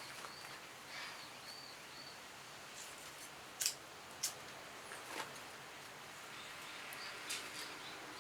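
A few sharp clicks and snaps, several seconds apart, from working a lighter and kindling to light a small box-type wood stove. A run of faint chirping bird calls in the first two seconds.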